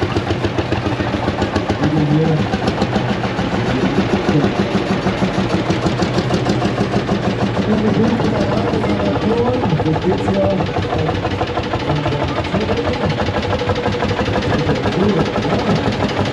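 Engines of vintage tractors running as they drive slowly past, a steady rapid pulsing, with crowd voices underneath.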